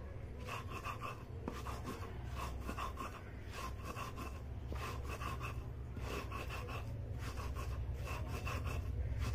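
Hand-held grinding stone rubbed back and forth on a flat stone slab (sil-batta), giving salt ground with green and red chillies and cumin a last light grind. It makes a steady rhythm of gritty scraping strokes, about two a second.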